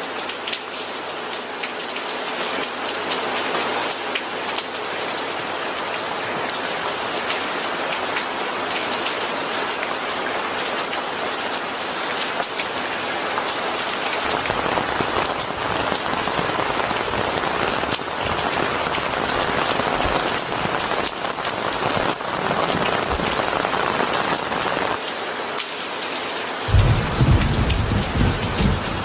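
Steady, heavy rain falling on a surface, with a deep rumble of thunder rolling in near the end.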